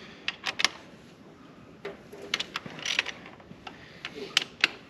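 Scattered metallic clicks and clinks, about eight spread irregularly, as transmission parts of a Case 1070 Power Shift are handled during teardown.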